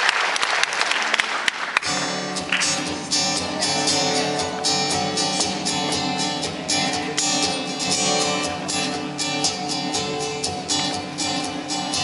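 Audience applause, then about two seconds in a song's instrumental intro starts, with chords strummed in a steady rhythm.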